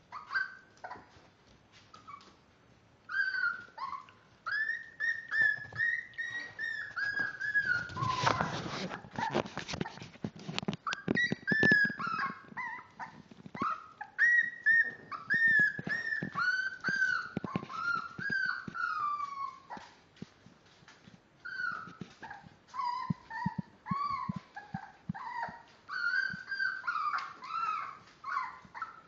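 Five-week-old miniature dachshund puppies whining and whimpering: many short high-pitched cries, each rising then falling, one after another. A burst of scratchy rustling comes about eight seconds in.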